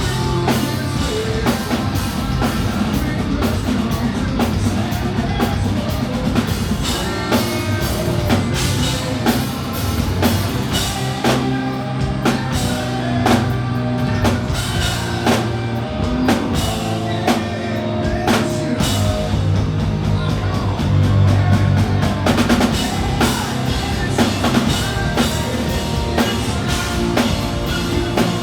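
Live rock band playing a song, led by a drum kit keeping a steady beat under heavy guitars.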